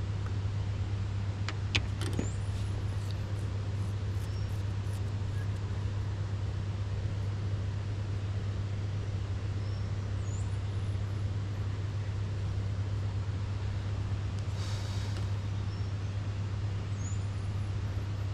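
A steady low drone, with a few faint high chirps and some clicks near the start, and a brief hiss about fifteen seconds in.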